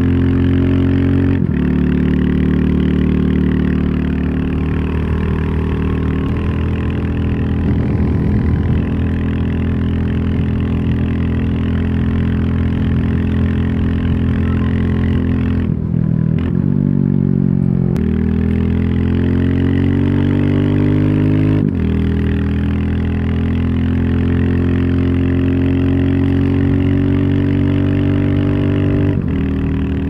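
Royal Enfield Classic 350's single-cylinder engine and exhaust running under way at cruising speed. Its pitch steps abruptly a few times, and about halfway through it dips and then climbs again over a few seconds.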